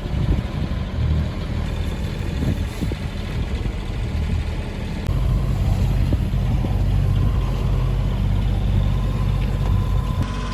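A sailboat's engine running steadily, a low drone with some rushing noise over it. About five seconds in it cuts abruptly to a louder, deeper stretch of the same kind of drone.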